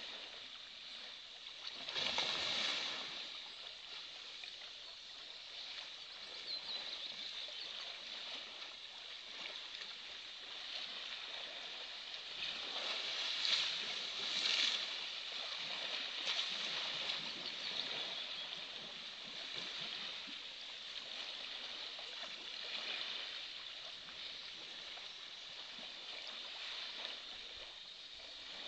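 An elephant splashing and sloshing water as it bathes in a pool, with louder surges of splashing about two seconds in and again around thirteen to fifteen seconds in.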